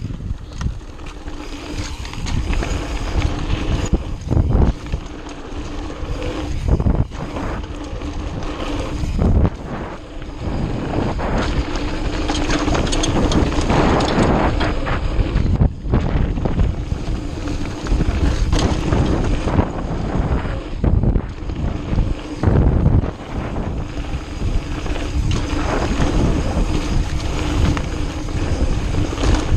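Mountain bike riding fast down a dirt trail: wind buffeting the camera microphone over the rattle of the bike and frequent knocks as it hits bumps.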